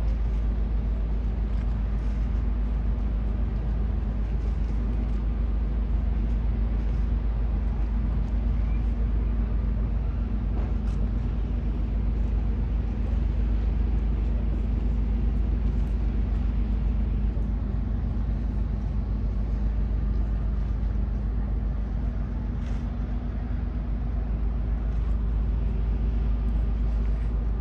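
Steady low rumble and hum of the cruise ship Star Legend's engines as she moves past close by.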